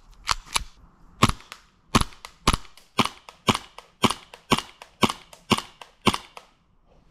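Gas blowback airsoft pistol fired in semi-automatic, about a dozen sharp shots at roughly two a second, stopping shortly before the end.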